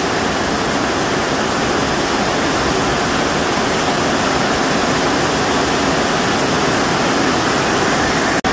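Heavy tropical downpour drumming on a corrugated sheet-metal roof and pouring off its edge: a loud, steady, dense rush. It breaks off for an instant near the end.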